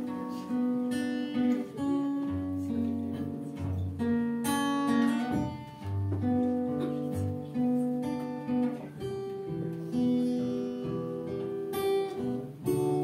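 Live band music led by a strummed acoustic guitar, with deep bass notes underneath, heard from the audience.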